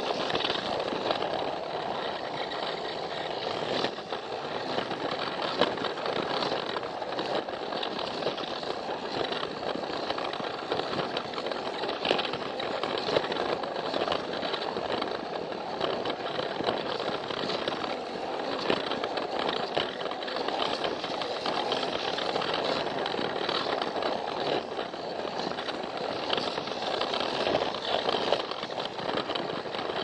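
Battery-powered Plarail toy train running along plastic track: a steady buzz of its small motor and gearbox with irregular clicks and rattles from the wheels on the track.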